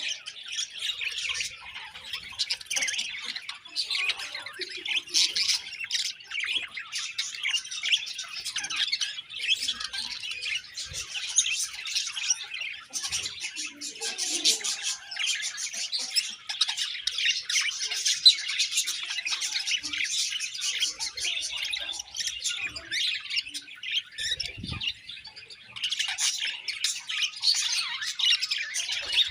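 A colony of budgerigars chirping, chattering and squawking together, a dense continuous mass of rapid high calls.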